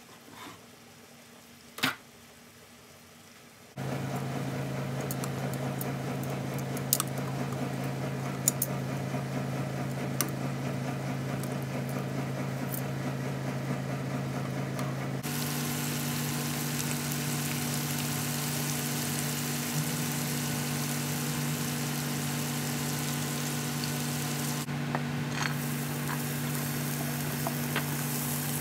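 Oil sizzling in a frying pan as marinated chicken tikka pieces on skewers fry, with occasional sharp clicks of metal tongs turning them and a steady low hum behind. The sizzling starts about four seconds in; before that it is quiet apart from a single sharp knock.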